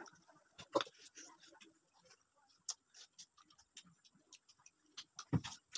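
Mouth noises of people eating mango slices: scattered wet smacks, sucking and chewing clicks. A sharper smack comes about a second in and a dull knock near the end.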